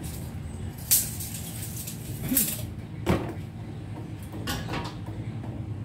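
Metal parts being handled on a workbench: a few sharp clanks and clicks, the first about a second in, then a short rattle past the middle, over a steady low hum.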